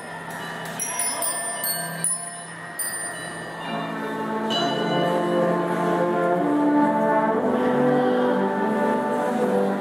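Marching band playing: high ringing mallet-percussion notes at first, then the brass come in about three and a half seconds in and the full band swells louder and holds.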